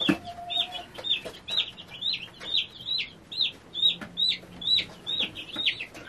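A days-old meat-bird (broiler) chick peeping loudly and insistently, about two peeps a second, each peep falling in pitch. These are the distress calls of a chick being held while its pasted vent is wiped with a wet cloth.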